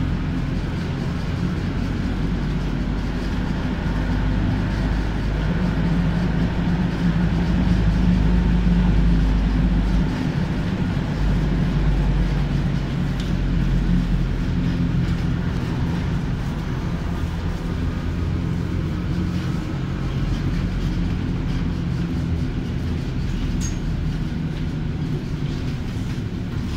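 Konstal 105Na tram running, heard from inside the car: a steady rumble of wheels on rail with the hum and a faint whine of its LTa 220 traction motors. The hum is heaviest between about five and ten seconds in, then drops.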